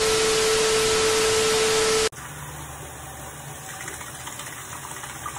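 Running water: a loud rush with a steady whistle-like tone for about two seconds cuts off suddenly, then a bathroom sink faucet runs more quietly and steadily.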